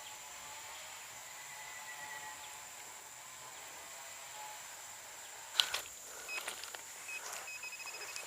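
Insects droning steadily in the background. A little past halfway a sudden rustle or knock, then scattered clicks and short high tones.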